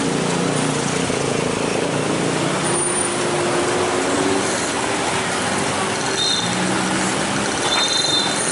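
Road traffic crossing a level crossing: a light truck's diesel engine running as it pulls across, mixed with motorcycle engines and road noise. Two short high-pitched squeals come near the end.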